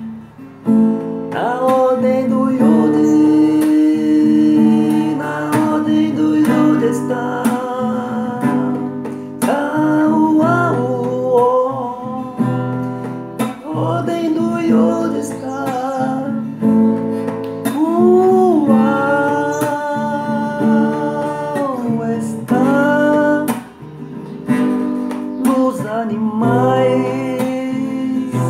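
Music: a strummed acoustic guitar accompanying a voice singing long, held notes that slide and waver in pitch.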